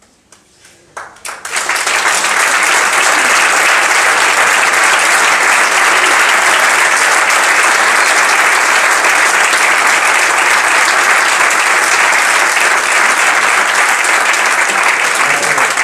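Audience applauding: a few scattered claps, then within about two seconds a full, steady round of applause that starts to die down at the very end.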